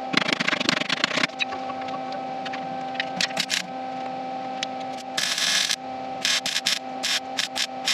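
Wire-feed MIG welder laying short tack welds on thin sheet metal. A crackling burst about a second long comes at the start, then a string of short crackling bursts, the longest a little past the middle. A steady faint hum runs underneath.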